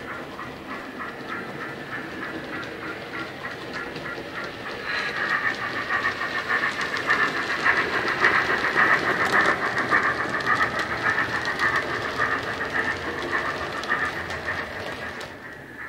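Bachmann 3F model steam locomotive's Wheeltappers DCC sound decoder playing steam chuffs through a bass-enhanced tender speaker, with the model's wheels clicking along the track. It grows louder as the locomotive approaches, is loudest about halfway through as it passes, then fades as it runs away.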